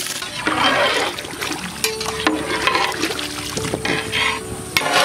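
Rice being poured into a pot of hot water, splashing in about three bursts.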